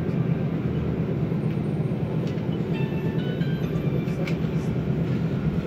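MAN Lion's Classic city bus running, heard from inside the cabin: its MAN E2876 CNG engine and ZF Ecomat 6HP504C automatic driveline give a steady low drone. A few faint high tones come and go around the middle.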